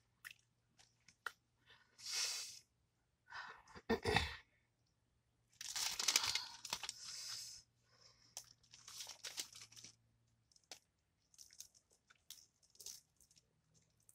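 Crunching and tearing of hard-fried fish being broken apart by hand and chewed, in irregular bursts with sharp clicks between. The longest stretch of crunching comes about six seconds in.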